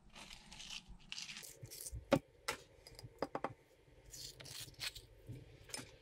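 Metal spoon scraping the flesh of a ripe avocado out of its skin in short rasping strokes, with several sharp clicks of the spoon against a glass bowl, the loudest about two seconds in.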